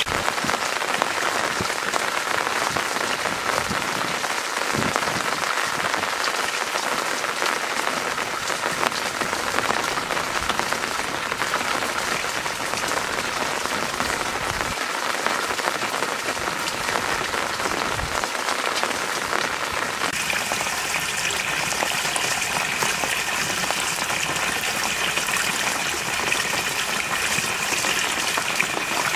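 Water pouring from bamboo pipes and splashing steadily into shallow pond pools, with a few soft thumps along the way; from about two-thirds in the splashing is closer and brighter.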